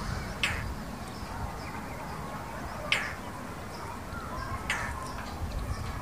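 Indian roller (Coracias benghalensis) giving three short, harsh, crow-like chack calls, about two seconds apart.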